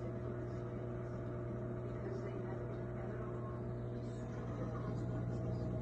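Reef aquarium pump running with a steady low hum.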